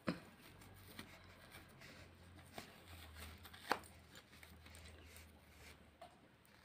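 Faint rustling and a few soft clicks as stretchy cotton-nylon arm sleeves are pulled up the arms and adjusted, the sharpest click nearly four seconds in, over a low steady hum.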